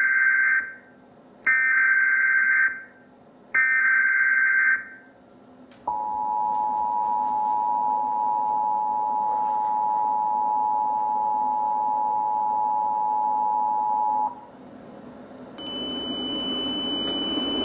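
Emergency Alert System tones announcing a tornado warning: three short bursts of the SAME header's warbling data tone, then the two-tone attention signal held steady for about eight seconds and cut off. A hiss with faint high whines comes up near the end.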